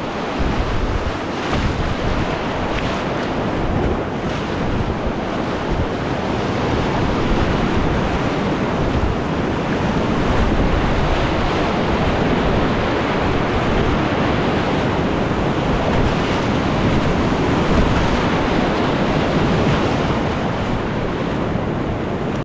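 Whitewater rapid rushing loudly and steadily, heard close up.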